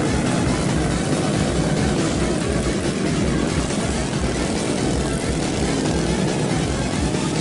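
Small underbone motorcycle engines of cubcross race bikes buzzing and revving on a dirt track, a steady loud drone of more than one bike with pitch rising and falling.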